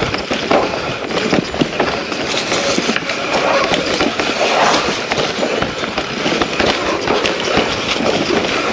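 Mountain bike descending a rough dirt trail: continuous rattling and clattering of tyres, frame and chain over rocks and roots, full of irregular sharp knocks.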